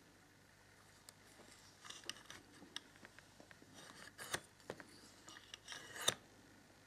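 Metal tweezers tapping and clicking against a small glass vial, with light rustling, as a strip of test fabric is pushed into it; scattered small clicks, the sharpest about six seconds in.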